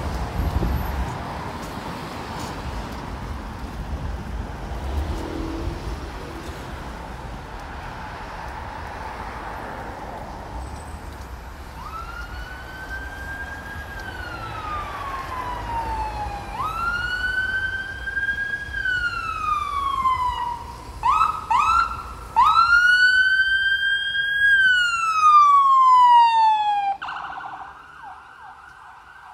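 Emergency vehicle siren wailing over street traffic noise: three long rising-and-falling wails with two short quick whoops between the last two, getting louder, then cutting off suddenly near the end.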